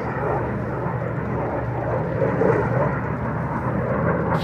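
Distant fighter aircraft flying overhead, an F-22 Raptor and a P-51 Mustang circling together, heard as a steady rumble.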